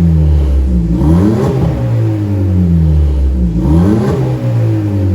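Audi Q3's 1.4 turbo four-cylinder revved twice through an aftermarket valved exhaust with the valve open for the sport sound, breathing through a stainless downpipe and a high-flow muffler. Each rev climbs quickly and falls back slowly toward idle, the first about a second in and the second about three and a half seconds in.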